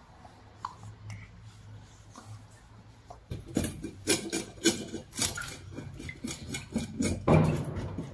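A knife scraping against the inside of a gutted silver carp's belly in a sink, scraping off the black lining, in quick irregular strokes that start about three seconds in. Before that there is only a faint low hum.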